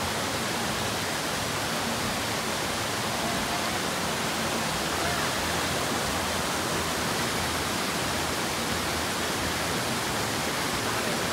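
Rushing mountain creek: whitewater tumbling over rocks, a steady, even rush of water.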